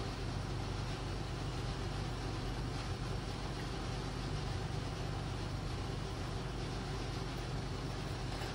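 A steady low machine hum and rumble that runs on unchanged, with no distinct knocks or clicks standing out.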